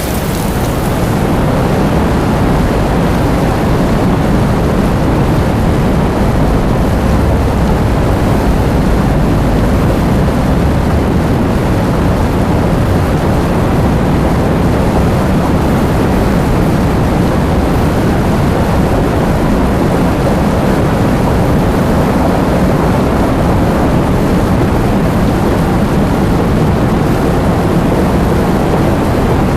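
Heavy rain with wind: a loud, steady wash of noise, strongest in the low rumble, that fades in over the first second and then holds level.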